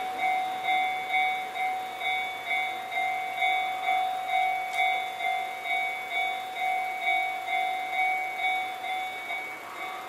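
Japanese railway level-crossing warning bells ringing, a steady electronic clang about twice a second, which marks a train passing or approaching. The ringing grows quieter near the end.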